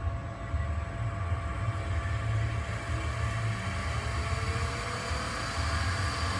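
A 40 hp transcritical CO2 (R744) axial piston compressor running steadily: a low hum with a few fixed higher tones over it. A faint tone rises in pitch about four seconds in.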